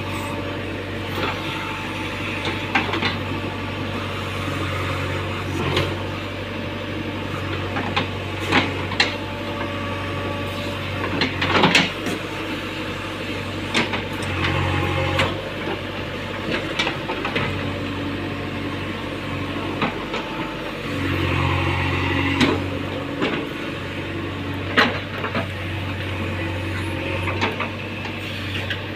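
JCB 3DX backhoe loader's diesel engine running steadily under hydraulic load, rising in load briefly about halfway through and again a few seconds later, with scattered clanks and knocks from the digging gear.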